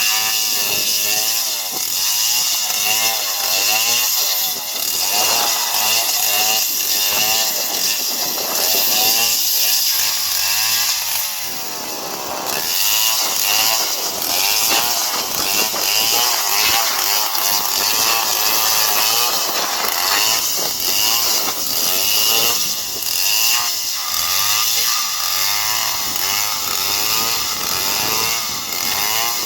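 Stihl two-stroke chainsaw cutting through a palm trunk, its engine pitch wavering up and down as it works under load, easing off briefly about halfway through.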